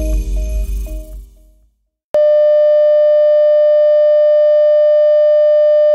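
Background music fading out, then after a brief silence a loud, steady TV test-pattern tone starts about two seconds in and holds unchanged.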